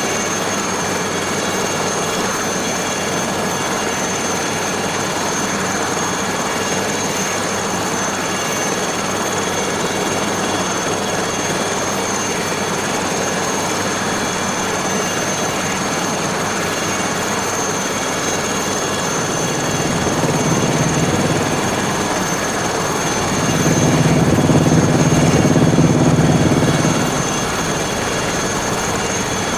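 Aérospatiale SA315B Lama helicopter running in flight: the turboshaft's steady high whine over the rotor noise. A lower hum swells twice, briefly about two-thirds of the way in and for a few seconds near the end.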